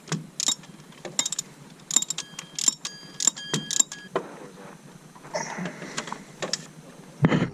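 Irregular metallic clicks and clinks of hand tools and metal parts being handled, several close together at times, with a brief ringing in the middle and a heavier knock near the end.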